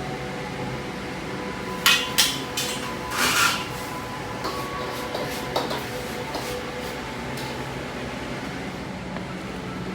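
A couple of sharp knocks and a short rustle, then a few lighter clicks, from dishes or food containers being handled, over a steady background hum.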